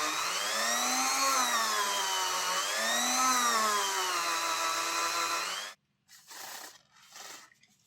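Small handheld rotary tool running while cleaning model locomotive wheels, its whine rising and falling in pitch twice as it is worked against them. It cuts off suddenly about six seconds in, leaving faint handling noises.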